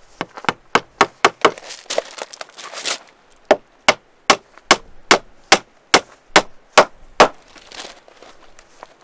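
A run of sharp, evenly spaced knocks, about two and a half a second, that pauses briefly about three seconds in and stops a little after seven seconds.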